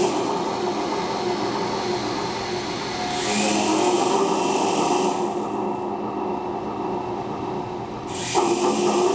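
Motor-driven string-instrument sculpture running: a continuous buzzing, whirring drone with steady low tones. A hissing high layer drops out for about three seconds past the middle.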